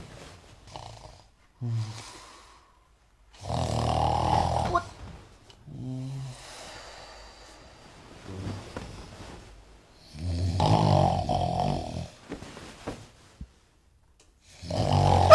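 A man snoring: two long, loud snores about seven seconds apart, with softer snorts and breaths between them. Near the end a very loud shout breaks in.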